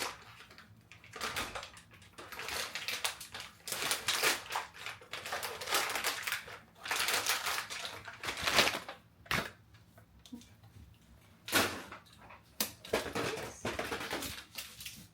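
Packaging being handled and opened: irregular rustling and crinkling with a few sharp clicks and snaps, as 3D-printer accessories are unwrapped.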